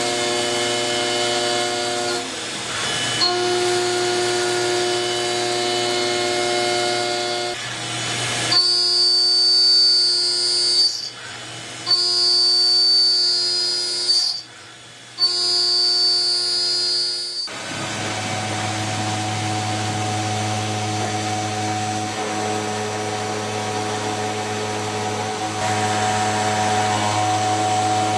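CNC milling cutters machining metal: a steady, loud whine of several tones held together. The pitch changes abruptly a few times, with two brief dropouts around the middle, then a deeper steady tone about two-thirds of the way through.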